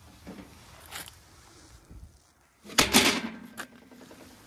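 A flat shelf panel being dropped into a storage rack's steel frame, landing with one loud clatter about three seconds in and a smaller knock just after. Light handling knocks come before it.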